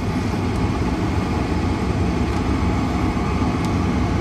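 Steady low rumble of a 1995 Cadillac Fleetwood Brougham running, heard from inside the cabin, with a few faint clicks.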